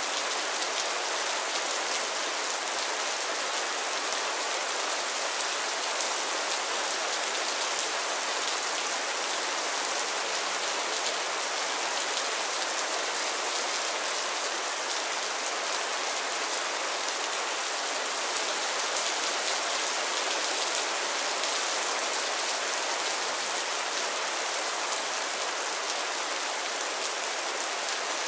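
Mild rain falling steadily on a roof and the ground: an even hiss of many small drops that neither builds nor lets up.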